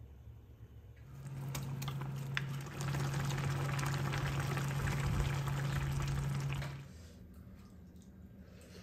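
A pan of tuna and radish braise in red chili broth boiling on the stove, a crackling, bubbling hiss with a steady low hum under it, starting about a second in and stopping about seven seconds in.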